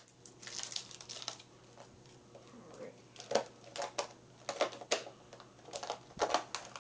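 Packaging of a boxed flexible keyboard being opened by hand: plastic and cardboard crinkling and rustling in irregular bursts, with a few sharper clicks.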